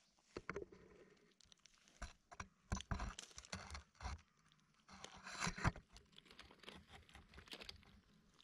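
Stray kittens chewing and crunching food close to the microphone, with irregular scrapes and knocks as one kitten noses the camera.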